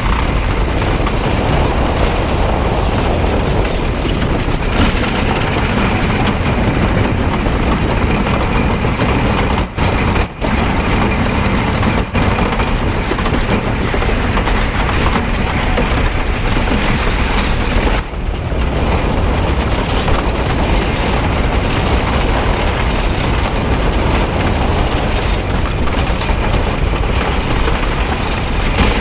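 GhostRider wooden roller coaster train running at speed over its new wooden track, a loud steady rumble with a few momentary drops in level.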